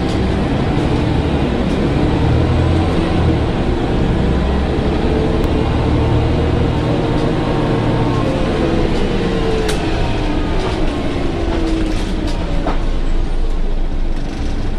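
Scania N94UA articulated bus's diesel engine and drivetrain running under way, heard from inside the passenger saloon: a steady low rumble with a whine that rises in pitch through the middle and then falls away. A few clicks and rattles from the cabin fittings.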